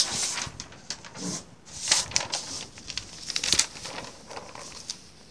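Large pages of an old bound newspaper volume being turned by hand, the newsprint rustling in several short bursts, the sharpest about three and a half seconds in.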